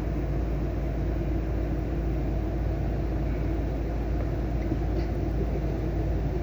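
A steady, low engine rumble that holds even throughout.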